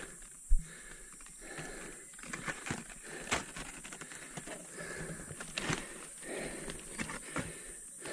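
Dry leaves and bent branches of an orangutan's leafy nest rustling and crackling as someone shifts about in it, with one loud sharp knock about half a second in.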